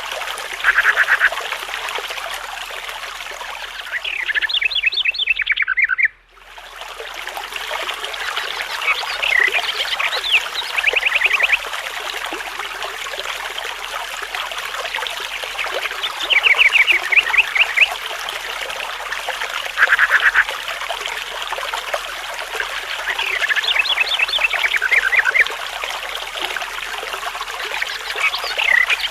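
Birds singing in short, rapid repeated trills every few seconds over a steady rush of flowing water. The sound drops out suddenly for a moment about six seconds in, then fades back up.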